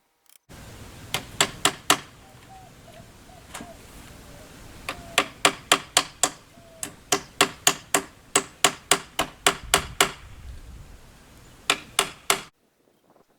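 Hammer blows: a few scattered strikes, then a quick steady run of about two to three blows a second, and three more near the end.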